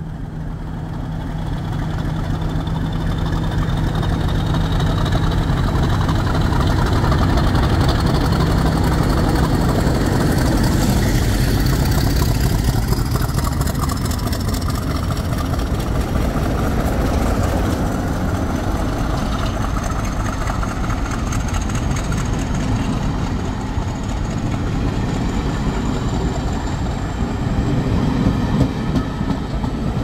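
Double-headed diesel locomotives, a Class 50 (English Electric 16-cylinder engine) leading a Class 33, running as the train approaches, a heavy steady rumble with low engine tones. A thin high whine rises slowly in pitch throughout.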